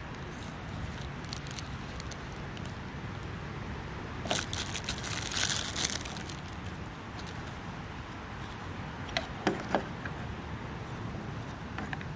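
Plastic parts bag crinkling as it is handled and opened, loudest for about two seconds near the middle, followed by a few sharp clicks of handling a little later.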